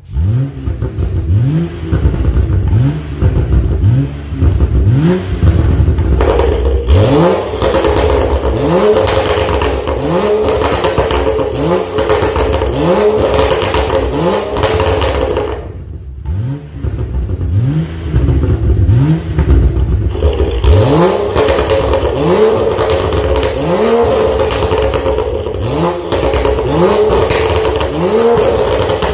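BMW X3 engine revved in quick repeated blips, about one a second, each a short rise in pitch, through an aftermarket stainless full-system exhaust with its valve open in racing mode. The revving breaks off briefly about halfway through, then picks up again.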